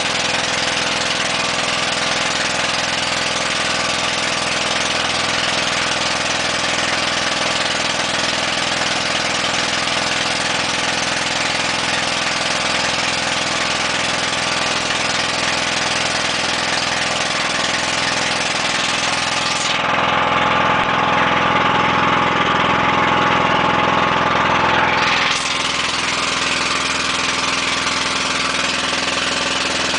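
Motorized outrigger boat's inboard engine running steadily at cruising speed, with a constant droning hum. For about five seconds, two-thirds of the way through, it grows louder and harsher, then drops back suddenly.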